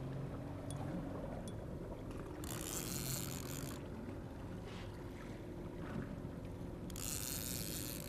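Fishing boat's motor running steadily with a low hum. Twice a loud hiss rises over it, about two and a half seconds in and again near the end.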